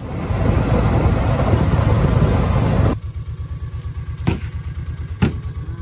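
About three seconds of loud rushing noise that cuts off sharply, then an engine idling with an even low throb. Two sharp knocks come near the end.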